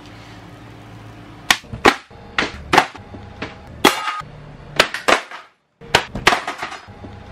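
A quick series of about a dozen sharp slaps and clatters: 10-inch diamond tile saw blades in plastic clamshell packs being dropped one onto another on a hard floor.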